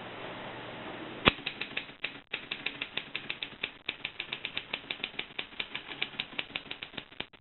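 Vintage Voss typewriter being typed on: a sharp first key strike, then a steady run of key strikes at about five or six a second.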